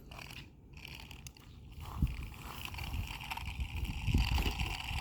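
Toy remote-control car's small electric motor whining steadily from about two seconds in, with irregular low thumps on the microphone.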